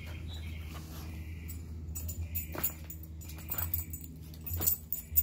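Husky jumping at bubbles on a leash, making short high whines, while its collar and leash jingle and several sharp clicks sound, the loudest ones near the end.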